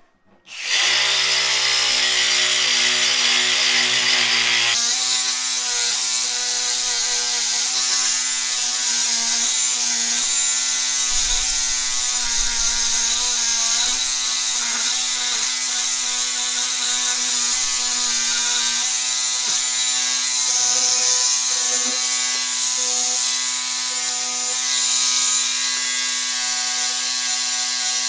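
DeWalt 20V Max cordless angle grinder with a cup brush, starting about half a second in and running steadily while brushing oxidized aluminum trim to a satin finish; its sound shifts about five seconds in.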